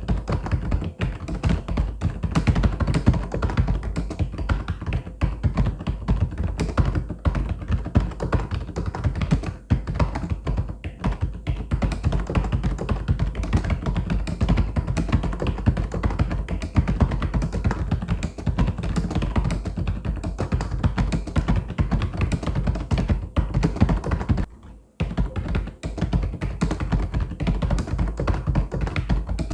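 Mechanical keyboard being typed on: a fast, continuous stream of key clicks and clacks that pauses for a moment near the end.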